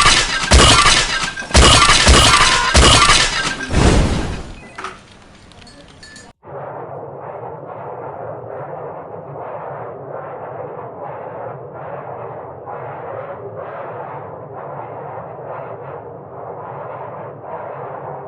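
A sound-effect clip of glass smashing: several loud crashes over the first four seconds or so, fading out. About six seconds in it cuts to a steady, muffled rushing noise with no clear tone.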